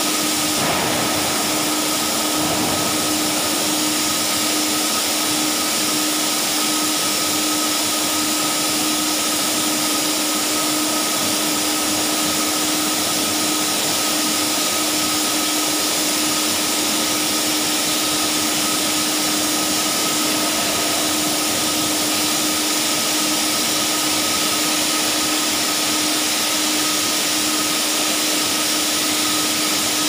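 Hydraulic power pack's electric motor and pump running steadily: an even mechanical drone with two constant whining tones, one low and one higher.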